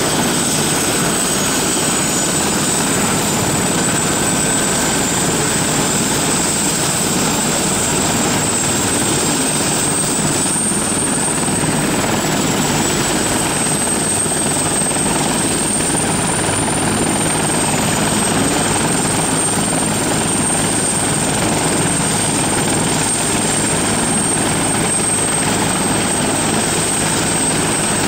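Bell 412EP helicopter running on the ground with its main rotor turning before liftoff: a steady rotor and turbine engine noise with a thin, high turbine whine that drifts slightly in pitch.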